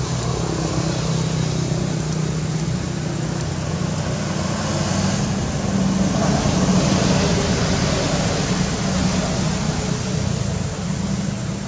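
Steady low motor hum over an even hiss, like running motor-vehicle traffic; it swells a little about six seconds in.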